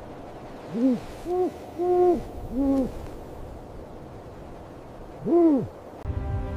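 Snowy owl hooting: four short hoots in quick succession, each rising and falling in pitch, then a single hoot after a pause of a couple of seconds. Music comes in near the end.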